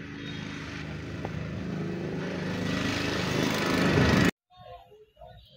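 A small engine running steadily and growing louder, then cut off abruptly about four seconds in.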